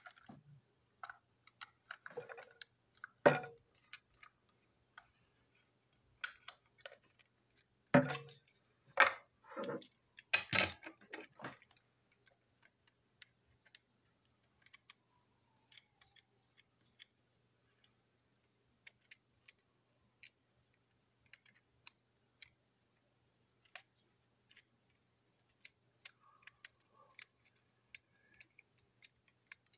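Toy train engine being handled and taken apart by hand, its body and chassis parts clicking and knocking together. A few sharper knocks come in the first half, then only sparse light ticks.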